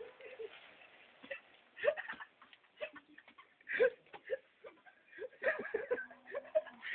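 Faint, broken-up fragments of voices and soft chuckles, with small scattered clicks and knocks between them. A short steady hum comes in near the end.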